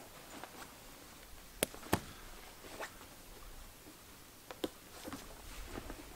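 Sparse sharp clicks and soft rustles of a person handling a tipi tent while pitching it. There are two clear clicks close together about a second and a half in, and a few more spread through the rest.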